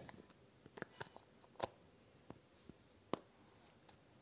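Plastic moulding-dough tubs being handled, giving about half a dozen light, sharp clicks and taps spread irregularly over a few seconds.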